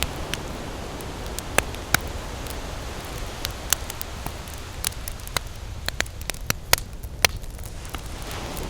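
Wood fire burning in a fireplace: irregular sharp crackles and pops over a steady low rush of flame, with a cluster of louder pops a little past the middle.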